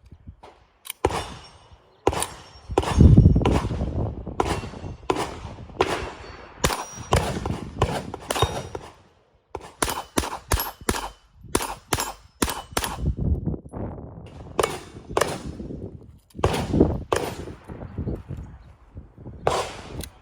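Ruger Mark IV Tactical .22 LR rimfire pistol firing a long string of shots at an uneven pace, often two or three a second. One louder, deeper report comes about three seconds in.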